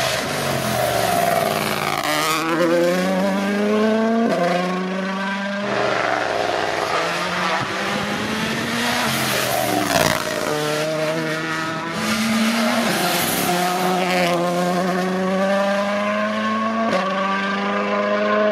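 A Toyota Yaris GR Rally1 hybrid rally car's 1.6-litre turbocharged four-cylinder engine is worked hard on a tarmac road. Its note climbs in pitch and drops back several times at gear changes as it accelerates past.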